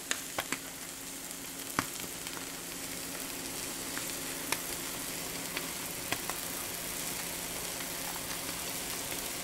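Egg omelet with waffles frying in a pan, a steady sizzle with scattered small pops and a low steady hum underneath.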